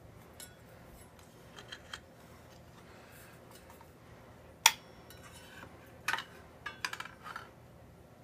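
A few sharp metallic clicks and taps, the loudest about halfway through and a cluster near the end, as a thin steel saw blade is handled and fitted onto a Bosch CS10 circular saw.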